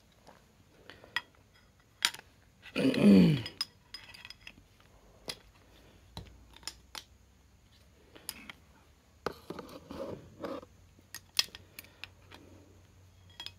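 Metal air-rifle parts, the barrel and breech block, clicking and tapping against each other as they are handled and fitted together. A brief voiced sound with falling pitch, like a short word or hum, about three seconds in.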